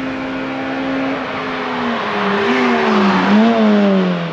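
Rally car driving past at speed, its engine note falling and wavering through throttle and gear changes, loudest about three seconds in as it goes by.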